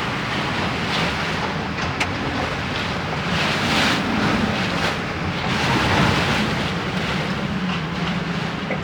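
Tornado winds blowing hard, surging in gusts every second or two over a steady low rumble.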